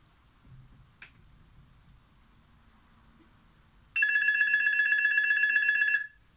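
Molten UD0050 3x3 shot clock's buzzer sounding as the 12-second countdown reaches zero: a loud, high-pitched electronic buzz held steady for about two seconds, then cut off. It signals a shot-clock violation, the ball going to the other team.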